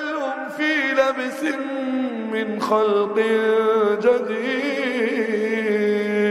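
A man reciting the Quran in melodic tajwid style, drawing out a vowel in long, ornamented notes: the pitch turns up and down in the first half, then settles into one steady held note.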